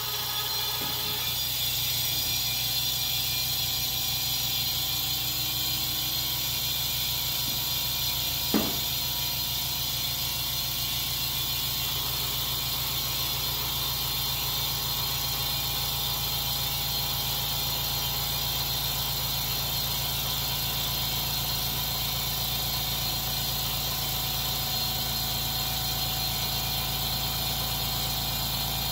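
California Air Tools 8-gallon oil-free air compressor running steadily, its motor and pump filling the tank with a steady hum and hiss as the pressure builds. One brief squeak about eight seconds in.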